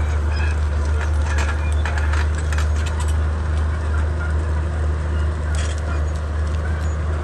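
Komatsu D31P crawler bulldozer's diesel engine running steadily under load, a deep drone, with sharp clicks and cracks now and then, mostly in the first three seconds and once again about two-thirds of the way through.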